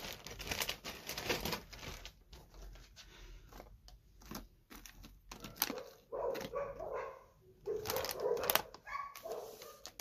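Plastic cereal bag crinkling as it is handled, and a dog barking a few times past the middle and again near the end.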